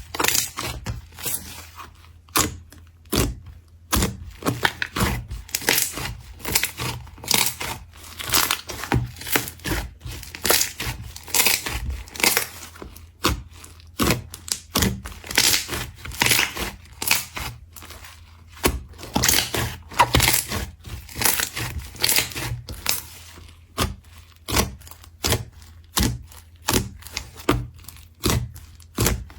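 Slime being squished, poked and stretched by hand, making a quick, irregular run of sticky pops and crackles.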